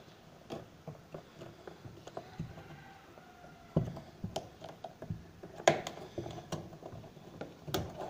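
Scattered light clicks and taps of hands and a screwdriver working at plastic panel parts and wiring inside a washing machine's spinner cabinet, a few sharper clicks in the second half.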